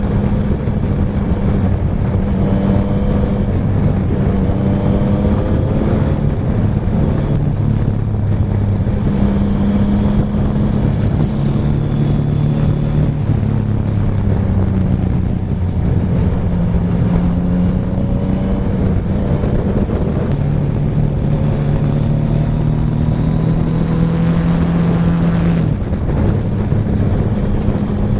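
Yamaha N-Max 125 scooter's single-cylinder engine running at a steady cruise, its hum shifting slightly up and down in pitch, with wind rushing over the microphone.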